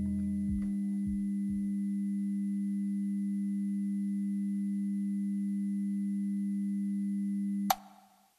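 Steady electronic hum of two pure low tones, held unchanged, with the last low notes of the music dying away in the first second or two. It ends in a sharp click near the end, then cuts to silence.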